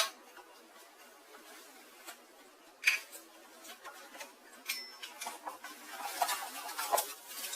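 Granite-coated pots and pans being handled: a couple of separate knocks and clinks, then a busier run of clinks and rustling over the last two seconds or so.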